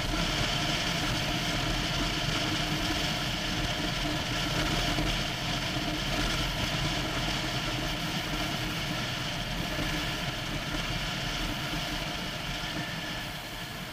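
Motorcycle engine running steadily while riding at street speed, mixed with a steady hiss of road and air noise; a little quieter near the end.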